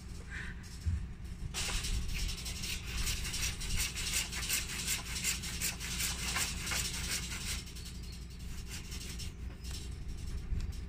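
Hand saw sawing back and forth through a bar with rapid rasping strokes. It starts about a second and a half in and stops a little past halfway.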